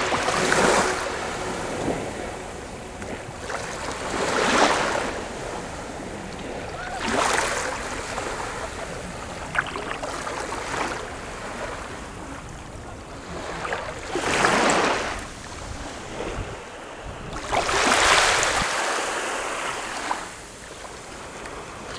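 Mediterranean sea waves breaking and washing onto the shore, the surf swelling up five times a few seconds apart.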